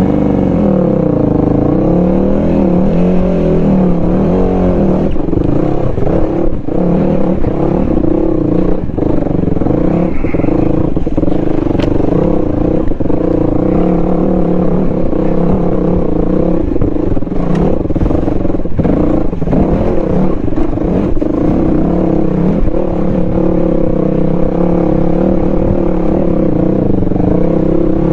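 Dual-sport motorcycle engine running while riding. Its pitch rises and falls for the first few seconds, then holds steady, with scattered knocks and rattles.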